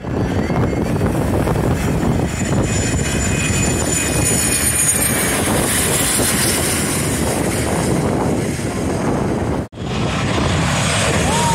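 Jet aircraft passing low overhead on landing approach: a loud rushing engine roar with a high turbine whine falling in pitch as it goes over. After a brief break about ten seconds in, another jet is heard approaching, again with a falling whine.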